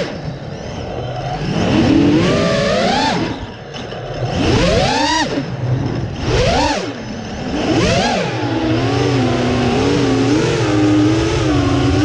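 Brushless motors and 6-inch props of a freestyle FPV quadcopter (Konasty 1739KV motors on 6S) being throttled hard. The whine sweeps sharply up and back down about four times with rushing air noise, then from about eight seconds in it settles into a steady whine that wavers slightly in pitch.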